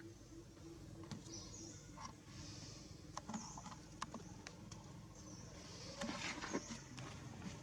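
Faint outdoor ambience: high chirps recurring every second or so, with scattered sharp clicks and a brief louder rustle about six seconds in.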